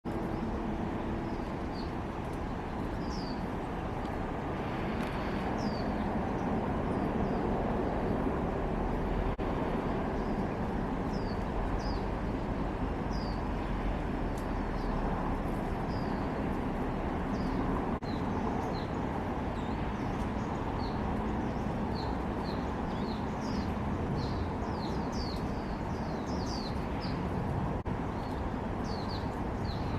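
Small songbird giving short, high, down-slurred chirps, scattered at first and coming in quick runs in the second half, over a steady background hum of distant traffic.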